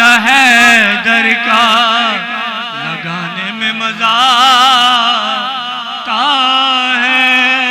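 A man's singing voice carrying a long, ornamented melodic line with wavering pitch, in the style of a devotional Urdu manqabat recitation, over a steady held low drone.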